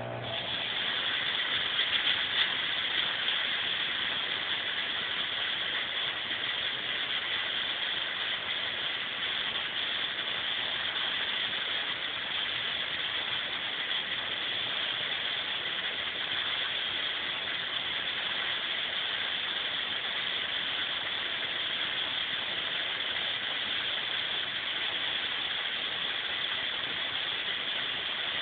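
A fog machine hissing steadily as it pumps out fog. The high hiss starts suddenly and runs on, a little louder in its first few seconds.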